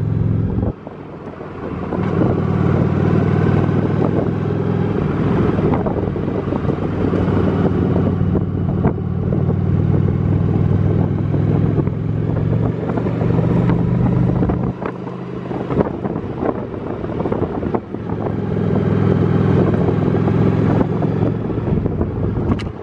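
Honda Shadow V-twin motorcycle engine running under way on a rough dirt road. The engine note drops away briefly about a second in and again around fifteen seconds in, with scattered knocks from bumps over the steady engine and wind noise.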